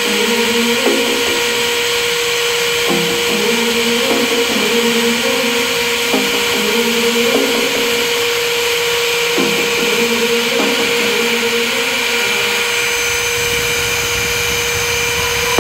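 A small high-speed grinding spindle with a white mounted stone running steadily with a constant whine and hiss as it grinds the bore of a machine-tool spindle. Background music plays underneath.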